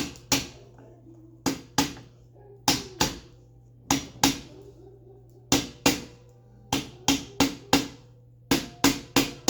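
Back of a hatchet hammering on a wooden paintbrush handle to drive a bicycle headset cup into the frame's head tube. The blows come in quick pairs, a pair about every second, coming faster near the end, each with a brief ring.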